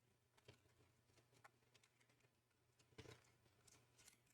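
Near silence with a few faint clicks and rustles, the clearest about three seconds in, from handling and opening a small box of thermal paste.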